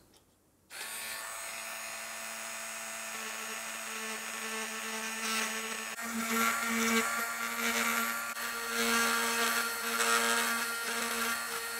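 Small mains-free 12-volt hand-held rotary tool starting up under a second in and running with a steady whine, then grinding unevenly from about five seconds in as its bit drills into the epoxy body of a DS1287 real-time clock chip.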